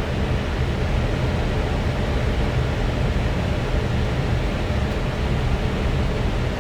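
Steady in-flight noise on the flight deck of an Airbus A320 on approach: a constant rush of air over a low rumble, unchanging throughout.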